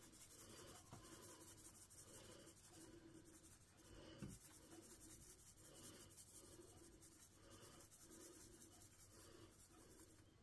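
Faint, rhythmic shaking of a shaker can of cinnamon sugar being sprinkled out, about two shakes a second, with one soft knock about four seconds in.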